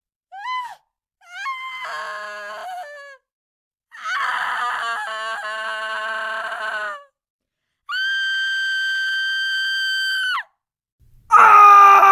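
A girl screaming in pain in separate high-pitched cries: a short yelp, then two longer wavering screams, then a piercing shriek held steady on one pitch for about two and a half seconds. About a second after the shriek, a louder, lower-pitched man's scream begins near the end.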